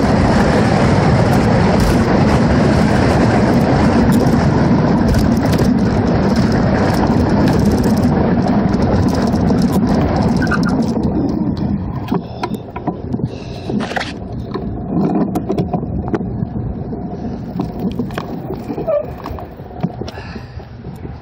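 Heavy wind rushing over the microphone of a camera on a 1968 Schwinn Stingray ridden fast. The wind eases off about halfway through as the bike slows to a stop. After that it is quieter, with scattered light clicks and rattles.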